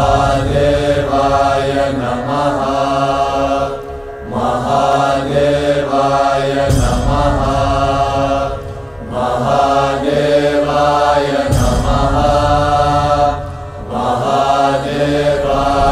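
Devotional music with a chanted mantra: voices chant in repeated phrases of about four to five seconds, and a deep low boom swells at the start of several of them.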